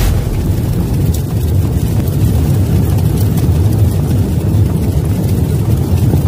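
Sound effect of fire burning: a loud, steady low rumble with a few faint crackles.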